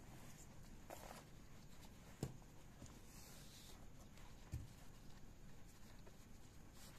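Waist-bag nylon webbing strap and plastic buckle being handled: faint rustling with two brief knocks, about two seconds in and again about four and a half seconds in.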